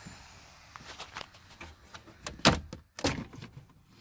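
Plastic instrument-cluster bezel of a Dodge Ram being worked loose by hand, with scattered clicks and creaks. Two louder snaps come about two and a half and three seconds in as its retaining clips let go.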